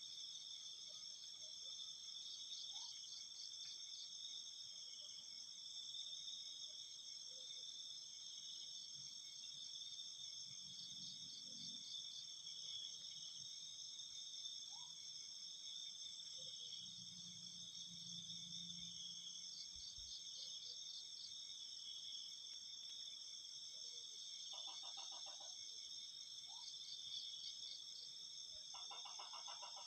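Night chorus of crickets and other insects: several steady high-pitched trills overlap continuously, while another insect adds short pulsed trills every several seconds, and a few brief lower pulsed calls come in near the end.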